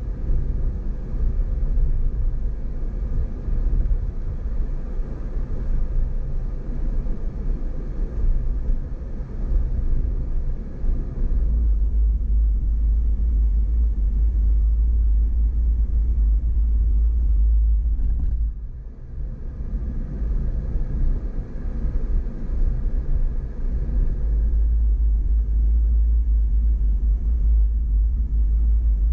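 Steady low rumble of a vehicle driving slowly on a dirt track, engine and tyre noise heard from inside the cabin. The rumble grows heavier partway through and eases briefly about two-thirds of the way in.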